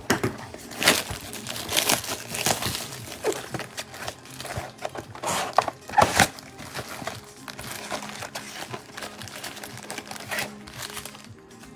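Foil wrappers of Donruss Elite football card packs crinkling and tearing as they are opened by hand, a run of sharp crackles that thins out near the end, with music playing underneath.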